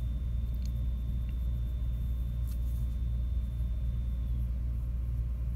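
Steady low background rumble, with a faint high-pitched whine that stops about four seconds in and a few faint light ticks.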